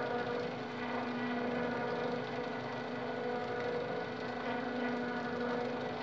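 Small electric motor of a homemade sawmill power feed running steadily, turning a roller chain over sprockets. A constant whirring hum with no change in speed: no speed controller is fitted yet.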